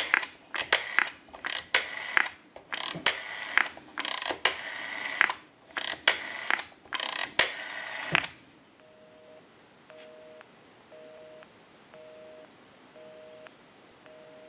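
AT&T 323 candlestick telephone's rotary dial being dialed, a quick run of clicking pulses for each digit, then about eight seconds in a faint busy signal from the receiver: two tones together, on and off about once a second, because the number dialed is engaged.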